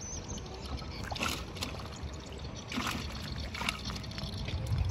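Water trickling and splashing, three short splashes: about a second in, near the middle, and once more shortly after.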